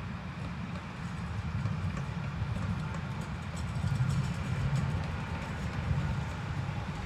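Tram running on its rails: a steady low rumble that swells a little midway, with faint light clicks.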